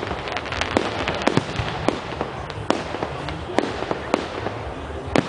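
Fireworks display: aerial shells bursting overhead in a string of irregular sharp pops and bangs, with one louder bang near the end.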